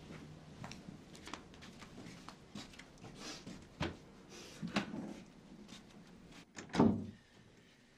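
Scattered soft rustles and small clicks of household things being handled, with a few sharper knocks, then one loud thump near the end.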